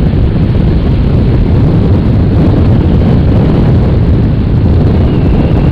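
Steady wind noise buffeting the microphone over the drone of a motorcycle cruising on the highway, loud and slightly distorted.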